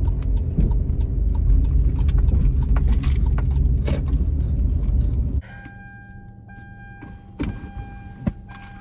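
Car engine running, heard from inside the cabin, then switched off about five and a half seconds in, so the rumble stops abruptly. A steady electronic dashboard chime then sounds in broken tones, with a few sharp clicks.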